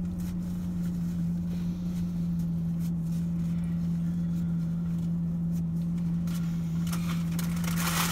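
Steady low hum of a parked car's cabin, running throughout. Paper food wrappers rustle and crinkle near the end.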